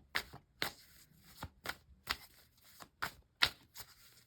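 Tarot cards being shuffled by hand: a string of short, crisp card snaps, irregular, about two or three a second.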